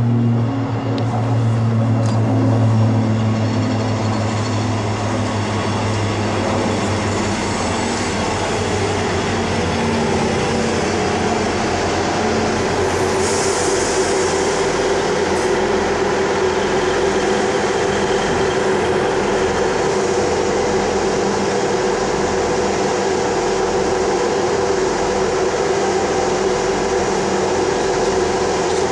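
East Midlands Trains Class 158 diesel multiple unit's underfloor diesel engines running as it pulls into the platform and comes to a stop, then idling with a steady drone. A brief high hiss sounds about halfway through.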